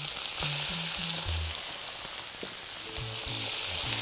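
Beef suan and onion sizzling as they sear in oil in a pot on a wood-fired stove, a steady frying hiss. Background music with short low bass notes plays under it.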